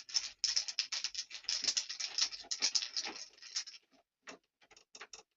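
Hand Phillips screwdriver unscrewing the long retaining screw of a cylinder door lock: a rapid run of scratchy clicks for about four seconds, thinning to a few sparse clicks near the end.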